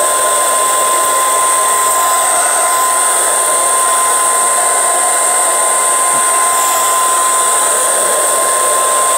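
Handheld hair dryer running steadily, an even rush of air with a steady high whine, blowing on hair held out with a brush.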